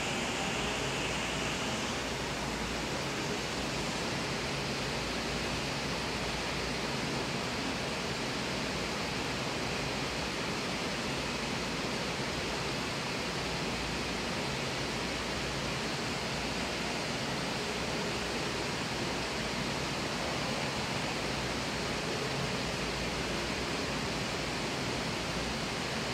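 Steady, even rushing of water running in an indoor atrium's rock stream and pond water feature, with no other events.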